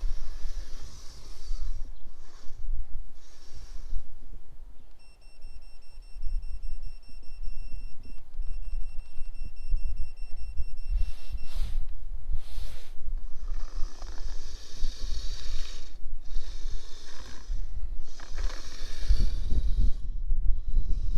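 Gusty wind buffeting the microphone, with a Kyosho Blizzard electric RC snow tractor running through snow: its motor gives a steady high whine for several seconds in the middle, and its tracks hiss on and off in the snow.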